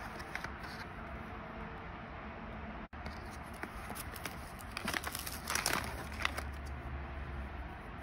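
Plastic blister pack and its cardboard backing card crinkling and crackling as fingers handle it, with a loud flurry of crackles about five to six seconds in, over a steady low hum.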